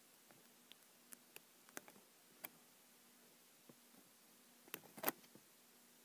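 A cat rolling and pawing on a bedspread: faint scattered clicks and rustles in a near-silent room, the loudest a short cluster about five seconds in, over a faint steady hum.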